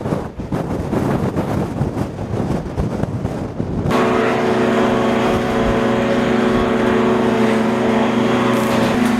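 Strong wind buffeting the microphone, then about four seconds in a motor vehicle's engine is heard running at a steady pitch over the wind.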